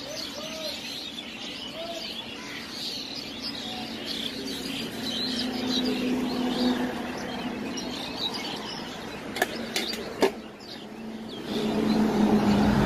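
Small birds chirping continuously. A few sharp clinks come a little after the middle, and a louder steady hum with dense noise sets in near the end.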